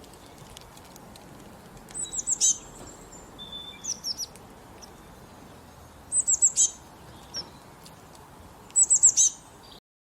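A small songbird singing three short phrases, each a quick run of high, downslurred notes, about two, six and nine seconds in, over faint outdoor background noise. The sound cuts off suddenly near the end.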